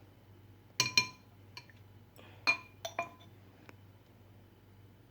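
A glass bottle clinking about seven times, light ringing knocks as homemade herbal syrup is put into it. The clinks fall between about one and four seconds in, the loudest near the one-second mark.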